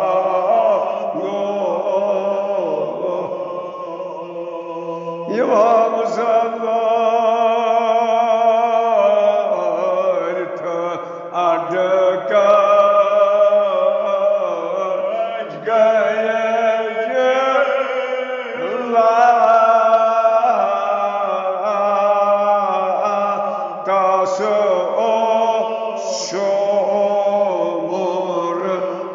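A man's solo voice chanting a Kashmiri marsiya, a sung elegy, in long drawn-out melodic lines with held notes that bend slowly in pitch.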